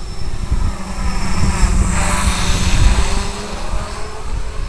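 Electric motors and propellers of a small FPV model aircraft buzzing, with wind rumble. The pitch swings up and down, and the sound is loudest about two seconds in.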